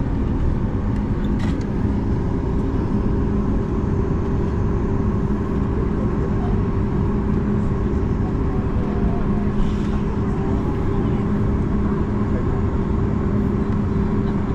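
Cabin noise inside a Boeing 737 MAX 8 taxiing after landing: the steady rumble of its CFM LEAP-1B engines at low power with a constant low hum.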